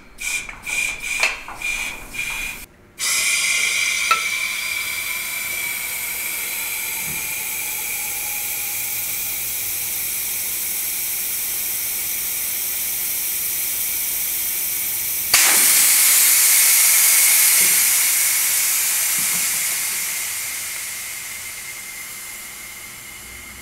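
Compressed air hissing from an air chuck as the front air-ride suspension bags are filled. A few short spurts come first, then a steady hiss with a thin whistle. About fifteen seconds in the hiss jumps louder, and it fades away near the end.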